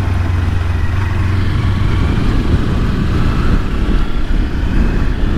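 Kawasaki Versys-X 300's parallel-twin engine running steadily while riding, with wind rushing over the microphone.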